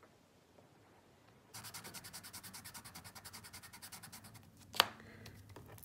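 Foam sponge dauber worked rapidly back and forth against a Stampin' Up! soft pastel on scrap paper to load it with colour: fast, even scraping strokes, about eleven a second, for about three seconds. Near the end comes one sharp click.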